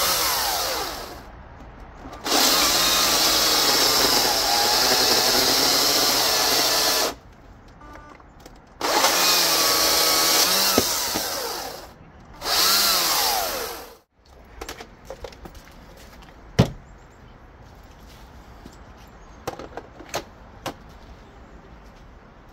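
Greenworks 82CS34 82-volt battery chainsaw cutting through red oak in several bursts, its motor whine dipping and recovering under load with short pauses between. The last burst winds down about fourteen seconds in. After that come a few light knocks and one sharp click.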